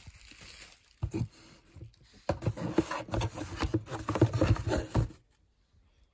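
Paperboard lotion cartons being handled and shifted inside a cardboard shipping box: irregular rustling, scraping and light tapping of card on card, starting about a second in, busiest in the middle, and stopping about five seconds in.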